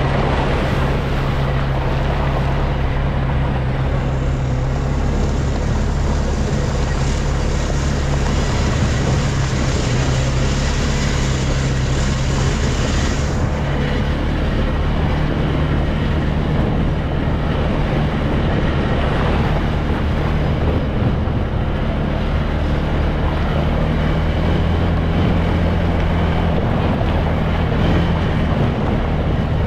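ATV engine running steadily while riding, with wind on the microphone. A hiss joins in from about four seconds in and cuts off suddenly about thirteen seconds in.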